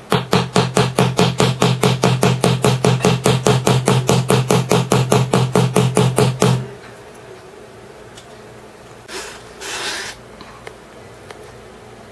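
A small electric device buzzing in rapid, even pulses, about six a second, that stops suddenly after about six and a half seconds. Two short hisses follow about three seconds later.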